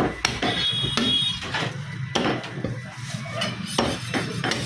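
A butcher's knife knocking and clinking irregularly as it cuts mutton on a wooden block, about six sharp strikes spread unevenly over a steady low hum.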